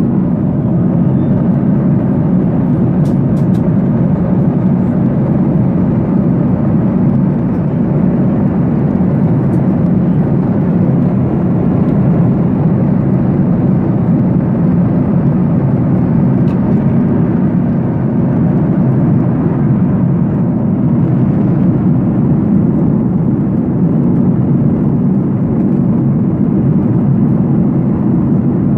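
Steady, loud drone of an airliner's cabin: engine and airflow noise heard from inside the plane, unchanging throughout.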